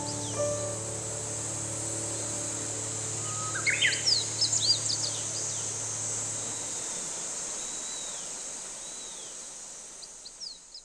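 Steady high-pitched insect buzz with birds chirping over it: a quick rising run of notes about three and a half seconds in, a cluster of chirps just after, and a few softer calls later. It all fades out near the end.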